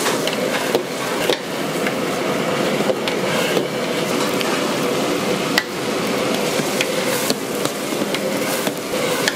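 Chinese-restaurant kitchen at work: a steady roar with a faint hum, broken by scattered metal clanks and knocks of utensils, the sharpest about halfway through.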